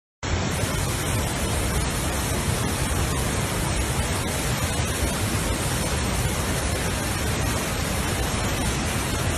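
Loud, steady rush of floodwater pouring over a dam wall, a dense even roar with a heavy low rumble, starting abruptly and cutting off suddenly near the end.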